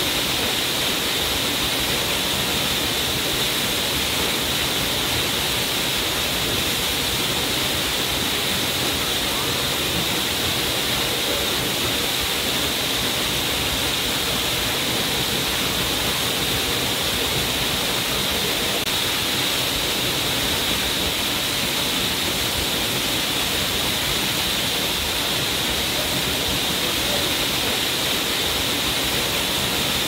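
Waterfall: a steady, even rush of falling water that does not change in level.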